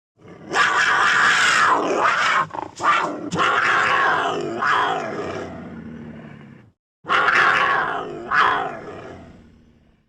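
Mountain lion calls: two long, loud, rough calls with a cut to silence between them, the second fading out near the end.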